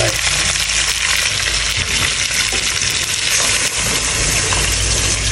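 Pieces of catfish sizzling in hot oil with shallots and garlic in a metal pot, a steady hiss. Near the end, water starts to be poured into the pot from a bowl.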